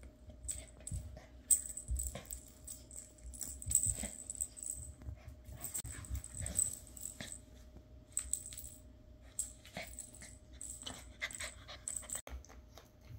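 Miniature schnauzer puppy playing with plush toys: scattered clicks, rustles and scrabbling through most of the clip, thinning out near the end.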